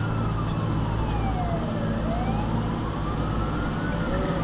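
Fire engine's siren in a slow wail, its pitch rising for about two seconds and then falling for about two, over the steady drone of the truck's engine, heard from inside the moving truck.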